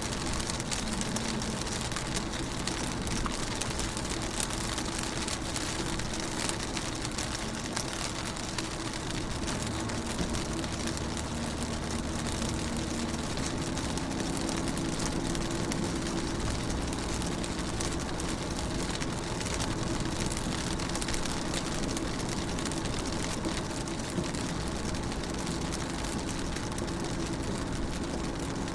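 Rain pattering steadily on a car window and roof, heard from inside the car, with a dense spread of small drop ticks. A low steady hum runs underneath, growing a little stronger about halfway through.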